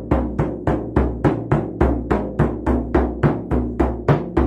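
Hand-held frame drum struck with a beater in a steady, even beat of about three and a half strokes a second, each stroke a low booming thump with a short ring.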